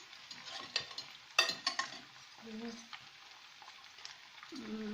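Stir-fried noodles with chicken and vegetables sizzling softly in a pan, with a utensil scraping and clacking against the pan several times in the first two seconds.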